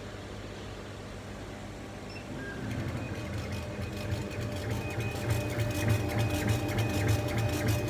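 Kamach 6090 CO2 laser machine running with a steady low hum. About two and a half seconds in, the laser head's stepper-driven carriage starts moving in quick, repeated back-and-forth strokes, its whirring whine stopping and restarting with each stroke.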